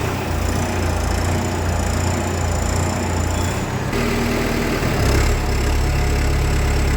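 Kubota M59 tractor-loader-backhoe's diesel engine running under load as the loader raises the forks, its low steady engine hum stepping up a little about four and five seconds in.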